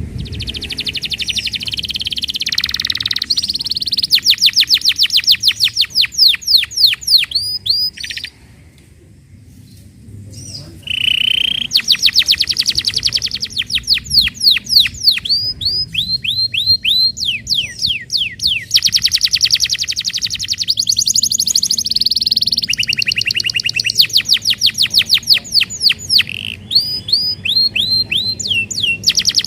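Domestic canary singing a long, fast song of rapid trills and runs of quickly repeated falling whistles, broken by a pause of about two seconds around eight seconds in.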